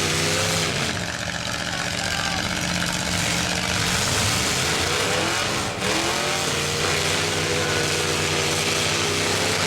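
Demolition derby cars' engines running, with several pitches at once, some steady and some rising and falling as engines rev.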